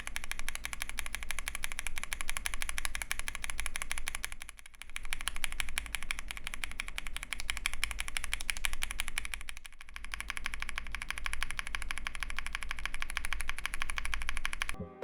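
Fast, continuous typing on a mechanical keyboard fitted with lubed and filmed Epsilon linear switches on a polycarbonate plate, with GMK keycaps: a dense stream of keystroke clacks. It eases off briefly twice, about five and ten seconds in.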